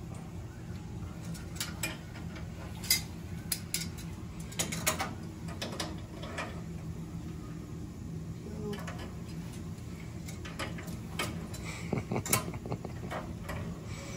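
Scattered metal clicks and clinks of 10-inch tongue-and-groove channel-lock pliers being adjusted and fitted onto brass union nuts on water-meter piping, the sharpest about three seconds in and again near the end, over a steady low hum.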